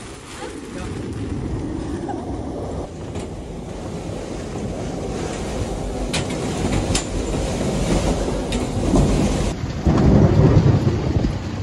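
Severe storm wind and rain lashing a sailboat, with heavy wind buffeting on the microphone. The noise builds steadily and swells into a deep rumble about ten seconds in, with a couple of sharp knocks around six and seven seconds in.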